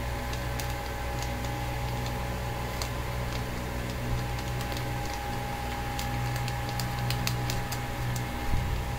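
Steady low hum with a thin steady whine, under scattered light clicks that bunch together about six to eight seconds in, and a soft low knock near the end.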